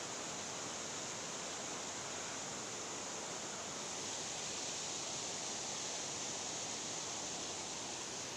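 Steady rush of water pouring over a low concrete weir and churning below it.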